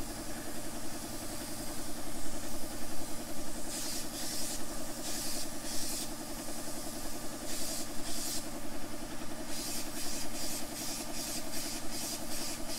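A motor or engine running at a steady hum throughout, with bursts of hissing laid over it: a few longer hisses starting about four seconds in, then short quick ones about two a second near the end.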